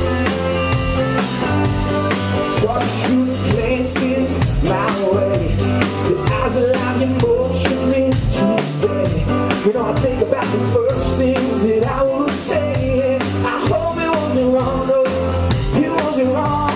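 Live rock band playing: a male voice sings over strummed acoustic guitar and a steady drum kit beat.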